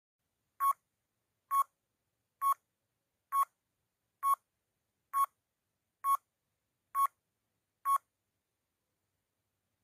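Countdown timer sound effect: nine short beeps, about one a second, each a clear tone near 1 kHz.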